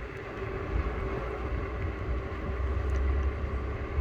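Bird electric rental scooter riding at a steady 20 km/h. A fluttering low rumble of wind and movement hits a phone microphone carried in a shirt pocket, over a steady thin whine from the scooter's motor.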